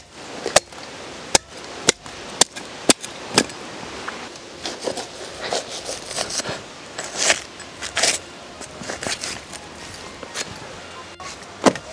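Cleaver chopping through a lamb carcass. Sharp chops come about twice a second for the first three or four seconds, then softer, rougher cutting sounds, then another sharp chop near the end.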